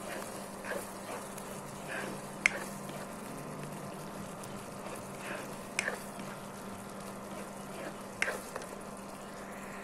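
Thick kaldereta sauce simmering in a nonstick pan while a plastic spoon stirs it, with a few sharp clicks as the spoon knocks against the pan. A steady low hum runs underneath.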